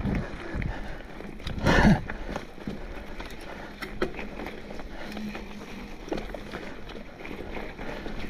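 Mountain bike ridden over a dirt and leaf-covered singletrack: steady tyre and trail noise with light rattles and ticks from the bike, and wind on the microphone. A louder rush of noise comes about two seconds in.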